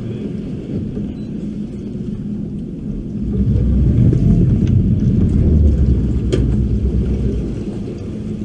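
Boat's outboard motor running at low speed with a low rumble, which swells for a few seconds from about three seconds in as the boat is put in gear and moves off along the dock, then eases again. A single sharp click comes near the end.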